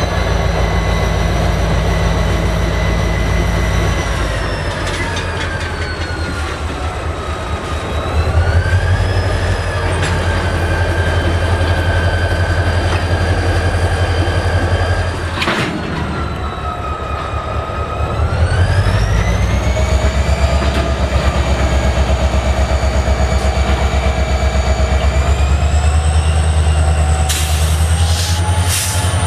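EMD 645 two-stroke diesel prime mover running with a heavy, pulsing rumble. Its whine falls, then climbs twice as the engine speed changes. There is a short sharp burst about halfway through and a few clicks near the end.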